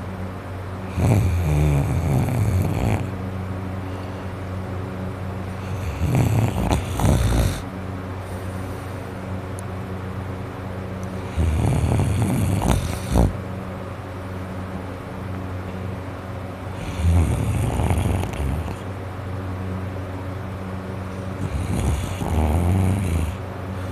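A sleeping man snoring through a nose and throat congested by a cold: five loud snores about every five seconds, each lasting a second or two.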